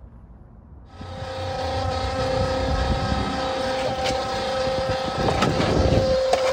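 A motor-driven machine starts up about a second in and runs steadily with a high hum, with a few sharp knocks over it.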